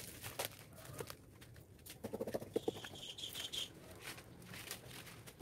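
Scattered rustling, crackling and light knocks of dry, fibrous sugar palm trunk and fronds as a man climbs the tree, with a quick run of sharp clicks about two seconds in. A short high chirping sound follows about a second later.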